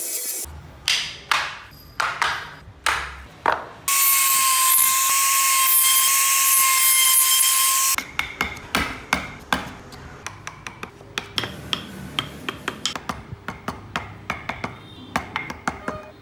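Woodcarving tools working wood: about six sharp cutting strokes, then a small electric power tool running for about four seconds with a steady high whine, then a long run of quick, short chisel strokes cutting and picking at hardwood.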